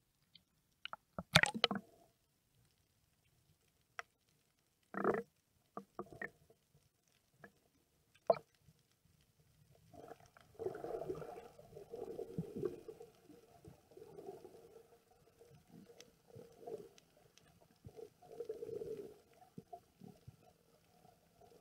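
Underwater sound heard through a camera's waterproof housing while snorkeling. A few sharp clicks and knocks come in the first seconds, the loudest about a second in. From about halfway there is a muffled, uneven gurgling rumble of moving water.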